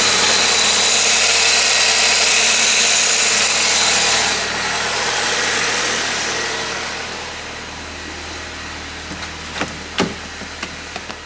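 Saab 9-3 2.0-litre turbo four-cylinder idling with the replacement alternator charging at about 14.3 volts, heard close to the belt and pulleys and then quieter from about four seconds in. A few sharp clicks near the end, the loudest about ten seconds in, from the car door being opened.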